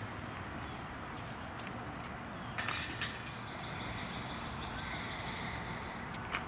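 Disc golf disc striking the chains of a basket: a short metallic jangle with a quick second clink about two and a half seconds in, against a steady outdoor hiss.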